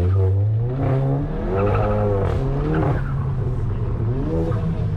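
Stage 2 remapped turbocharged Volkswagen Golf GTI engine accelerating hard. The revs rise for about two seconds, drop about three seconds in, then climb again near the end.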